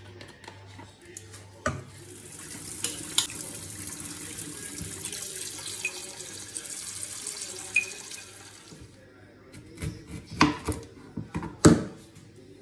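Kitchen tap running water into a glass bowl of raw chicken pieces in a stainless steel sink, a steady hiss for about seven seconds that then stops. A few sharp knocks and clatters follow near the end, the loudest just before the end.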